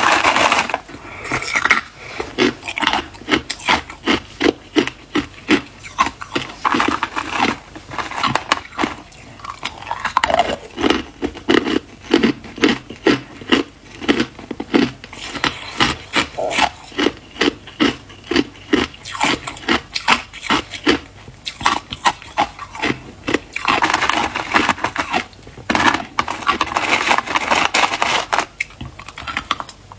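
Crushed hard ice being chewed: a long run of crisp crunches, about two or three a second. Near the end the crunching gives way for a few seconds to a denser, rougher sound as ice pieces are handled in a plastic tub.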